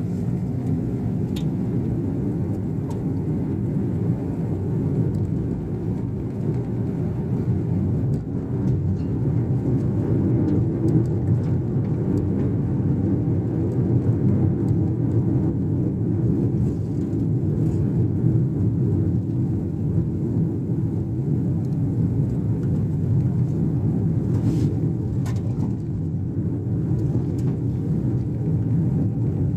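Steady road and engine rumble of a car being driven, heard from the vehicle, with a few faint ticks here and there.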